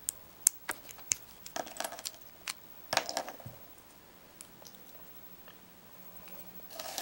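LEGO minifigure parts being pulled apart by hand: a string of small sharp plastic clicks and scrapes in the first three seconds as the life jacket and head come off, then a pause, then another short bit of plastic handling noise near the end.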